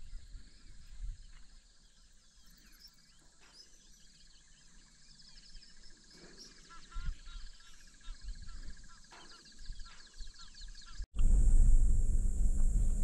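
Many wild birds calling and chirping over a steady, high-pitched insect drone. About eleven seconds in, the sound cuts abruptly to a louder insect buzz over a low rumble.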